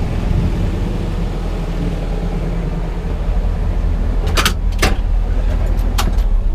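Crawler excavator's diesel engine running steadily under working load, with three sharp knocks past the middle.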